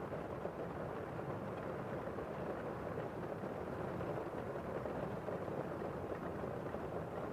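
Steady, muffled rain ambience: an even rushing noise with no separate drops or claps standing out.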